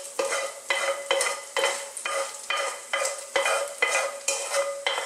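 A metal utensil scraping and knocking crisp bacon out of a stainless steel sauté pan into a Dutch oven. It strikes about twice a second, and each stroke rings on briefly, over sizzling bacon fat.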